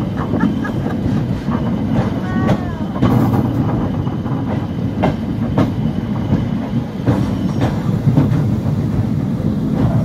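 Narrow-gauge steam train running, heard from an open wagon behind the locomotive: a steady low rumble with a clack of wheels over the rail joints every second or so.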